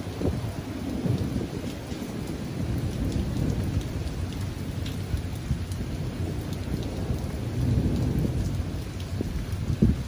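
Thunder rumbling in long low rolls over steady rain, swelling about three seconds in and again near eight seconds, with a sudden louder peak just before the end.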